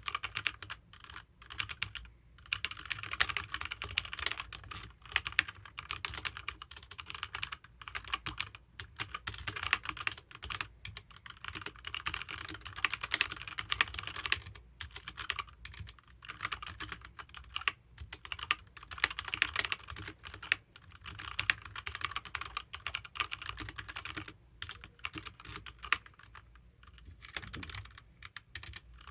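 Fast continuous typing on a HyperX Alloy Origins mechanical keyboard with HyperX Red linear switches: rapid runs of key clacks broken by brief pauses.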